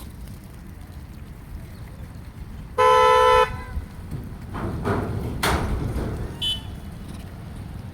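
A single loud, steady horn toot lasting about half a second, about three seconds in, followed by a few short, rough noisy bursts.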